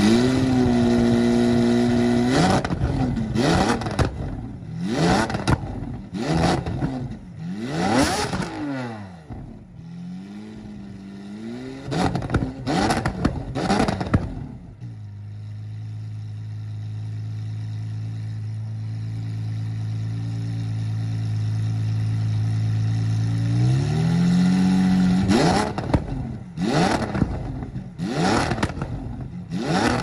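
Lamborghini Aventador SVJ's V12, breathing through a Fi Exhaust valvetronic catback with catless downpipes, revved while parked: it climbs to a held rev, then gives a string of quick throttle blips with crackles between them. About halfway it settles into a steady idle for several seconds, then climbs and is blipped sharply again near the end.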